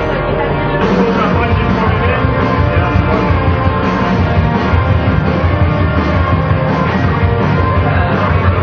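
Rock music track played loud, filling out with heavier bass about a second in.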